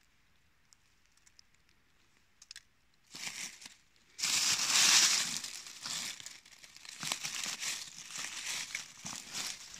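Dry fallen leaves crackling and rustling as a hand pushes through the leaf litter, starting about three seconds in, loudest just after, then coming in short bursts.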